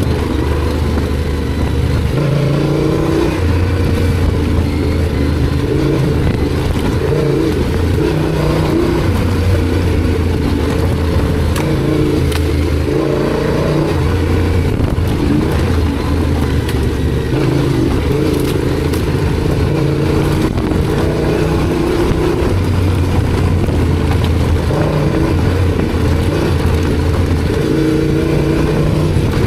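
Yamaha Ténéré 700's parallel-twin engine running on the move, its note rising and falling every second or two as the throttle opens and closes, with wind noise over it.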